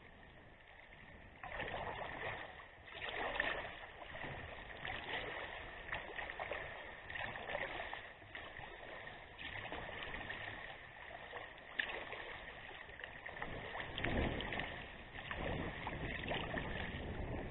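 Water splashing and lapping against a sea kayak's hull as it is paddled through choppy water, heard from a camera on the front deck; the splashing swells and falls unevenly and gets louder about a second and a half in.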